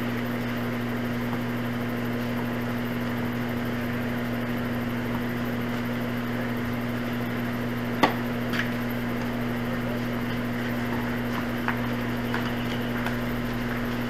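Steady low electrical-type hum with background hiss, broken by a sharp pop about eight seconds in, the loudest sound here, then a fainter pop half a second later and a few faint ones near the end: tennis balls being struck with rackets.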